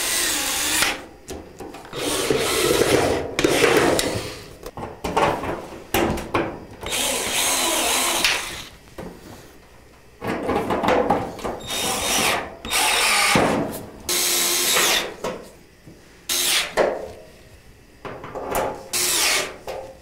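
Cordless screwdriver driving screws in, in a series of short runs of a second or two with pauses between.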